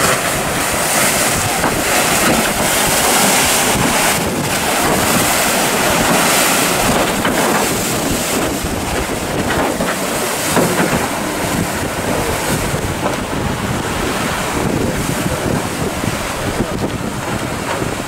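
Wind blowing on the microphone over rough, choppy sea, with waves breaking and a sailboat's bow wash churning through the water.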